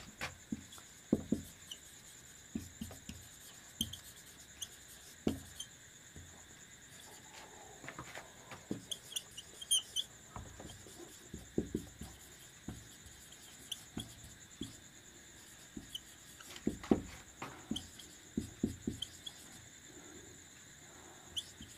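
Marker pen writing on a whiteboard: irregular short squeaks and taps as the letters are drawn, with brief pauses between words.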